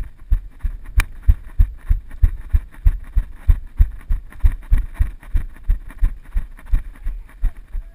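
Running footsteps, about three heavy thuds a second, picked up by a body-worn camera that jolts with each stride.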